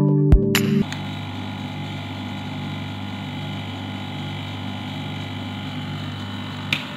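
Steady motor hum of a Wanshida lens edging machine left running, with a short click near the end.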